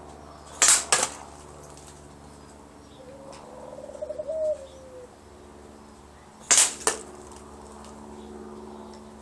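Two big-bore blowgun shots about six seconds apart. Each is a sharp puff from the tube followed about a third of a second later by a second crack as the ammo strikes.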